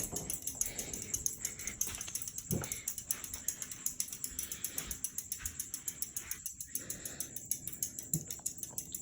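52-inch close-mount ceiling fan coasting down after being switched off, its spinning parts giving a rapid, even mechanical ticking of about five a second.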